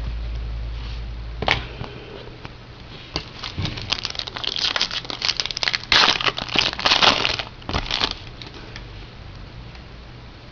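Crinkling and tearing of a trading-card pack wrapper being handled and opened, in irregular crackly bursts that are busiest and loudest a few seconds in and then die down.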